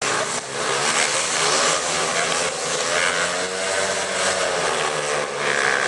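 Several speedway bikes' single-cylinder engines revving together at the starting gate, their pitches rising and falling over one another.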